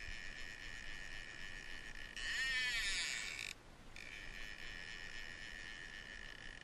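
Soft background music of steady held high tones, with a brief sweeping swell a little after two seconds in and a short break in the tones at about three and a half seconds.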